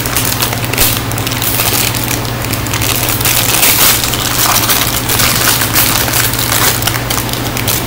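Plastic toy packaging crinkling and crackling as it is handled and opened, over the steady hum of a fan.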